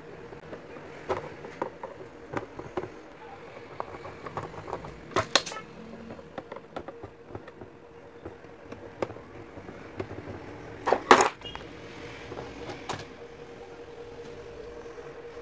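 Screwdriver working the small screws out of a plastic fan base: scattered light clicks and scrapes of metal on plastic, with two louder sharp clacks about five and eleven seconds in.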